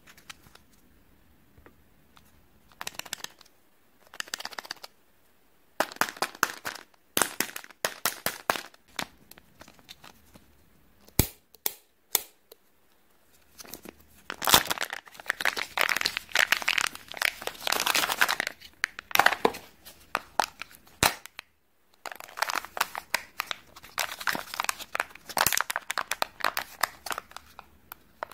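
Kinder Joy egg being unwrapped by hand: the printed wrapper crinkling and tearing, the plastic capsule being pulled open and its foil lid peeled back. Scattered crinkles and clicks at first, becoming dense, continuous crinkling about halfway through.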